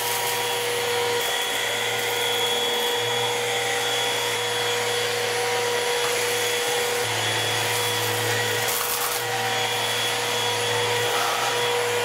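Midea VSS01A14P-R cordless stick vacuum running steadily as its motorised brush head is pushed over carpet to pick up de-icing granules. It is a hiss with a steady whine on top, and a low hum that cuts in and out several times.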